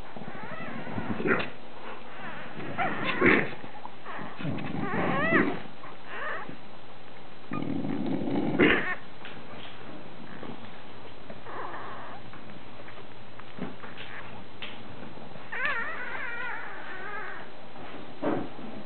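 Day-old British bulldog puppies squeaking and whimpering while nursing, in several short cries that waver up and down in pitch. A few knocks and a rustle come in between.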